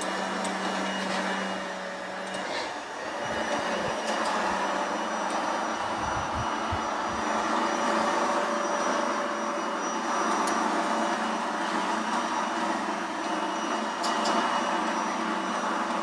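Taurus Hexa Stryker robot vacuum cleaner running on a tiled floor: its suction motor and spinning side brushes give a steady whirr as it sweeps up grass and dirt. A low hum within the whirr drops out about two and a half seconds in.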